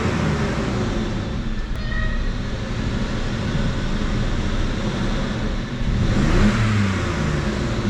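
BMW 325xi's 2.5-litre inline-six running at idle, revved up once about six seconds in and then dropping back. It runs smoothly with its new ignition coils, no longer misfiring.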